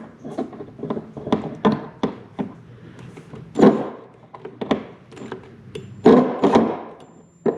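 Irregular knocks, clicks and thunks of hands and a tool working screws and plastic fittings loose on a plastic boat hull.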